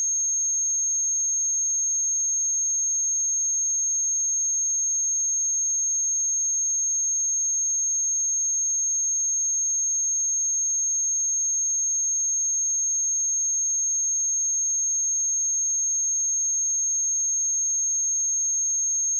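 A steady, continuous pure sine-wave test tone at 6454 Hz, a high-pitched unbroken whistle at one constant pitch and level.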